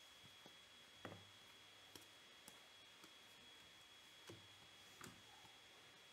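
Near silence broken by faint, irregular soft clicks and ticks as glossy baseball cards are slid off a hand-held stack one at a time, roughly one every half second to a second. A thin, steady high-pitched tone runs underneath.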